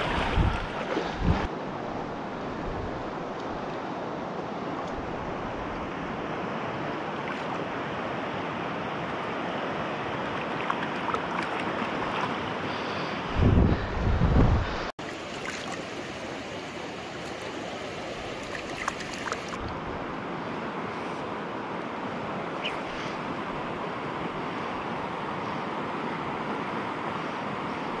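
Mountain stream water rushing over a shallow gravel run around the wader's legs, a steady wash of noise. About halfway through, wind buffets the microphone with a loud low rumble for a second or two, which cuts off suddenly.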